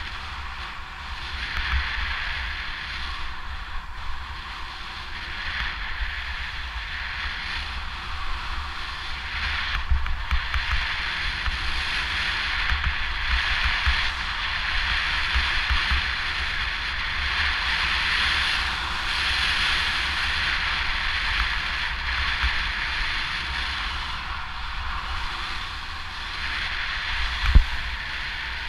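Steady hiss and scrape of sliding down a groomed ski slope, rising and falling in waves, with wind buffeting the body-worn camera's microphone as a low rumble. A sharp knock comes near the end.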